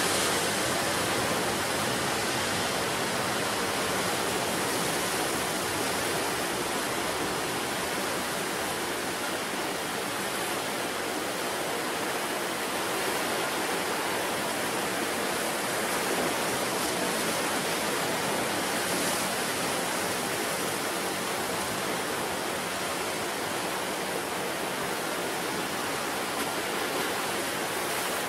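Sea surf on a rocky coast: a steady rushing wash of breaking water with slight swells.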